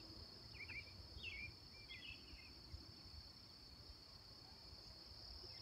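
Faint evening insect chorus: a steady high trill, with a few short chirps in the first half and a faint low rumble underneath.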